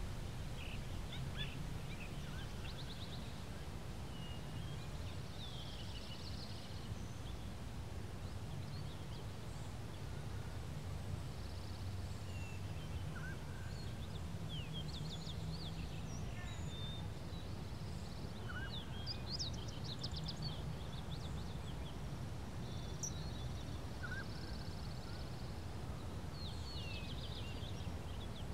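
Faint background ambience: a steady low hum with scattered short bird chirps and twittering calls.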